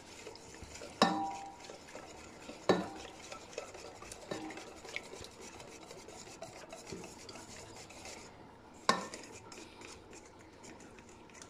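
Wire whisk beating citrus juice in a stainless steel bowl: a steady swishing of the liquid, with the whisk wires striking the metal bowl in a few sharp, briefly ringing clinks. The loudest clinks come about one second in and again near the end.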